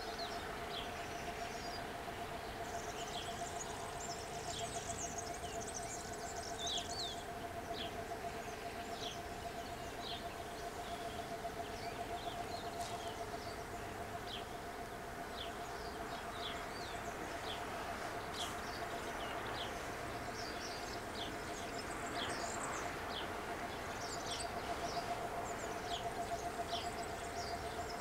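Level crossing warning bell ringing on and on with rapid strokes, a steady ring that signals the barriers are down for an approaching train. Small birds chirp over it.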